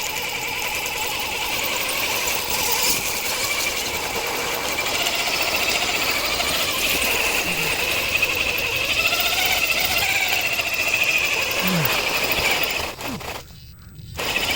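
Scale RC rock crawler's electric motor and geartrain whining steadily under load as it climbs. It cuts out briefly near the end.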